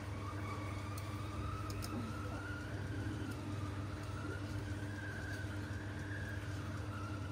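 Hot-air rework blower running steadily: a constant fan hum with a faint whine that wavers slightly in pitch, blowing hot air to melt the solder on a tablet's USB charging connector.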